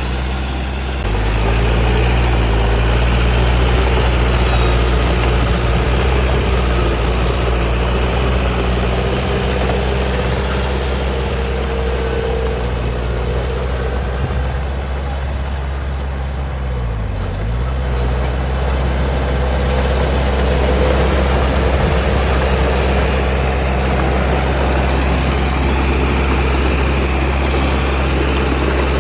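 Diesel engine of a Komatsu D31P crawler bulldozer running steadily. It grows louder about a second in and briefly sags in pitch about 17 seconds in before picking back up.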